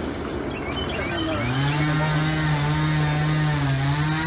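Chainsaw engine revving up about a second in, then running steadily at high throttle with small dips in pitch.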